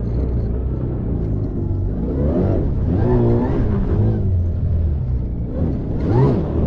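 Taiga electric snowmobile's motor whining under throttle over a steady low rumble of track and snow, its pitch rising about two seconds in and surging again near the end.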